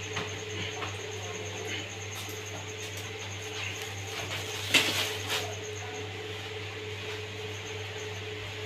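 Light clicks and taps of parts being handled over a steady low hum; the loudest is a sharp click a little under five seconds in, followed by a smaller one.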